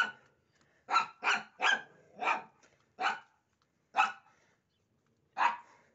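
A dog barking: seven short, sharp barks at irregular intervals, several in quick succession early on and the rest more spaced out.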